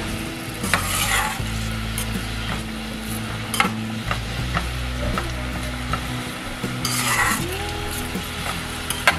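Sliced onions sizzling in hot oil in a stainless steel frying pan, stirred with a metal spatula that scrapes against the pan a few times.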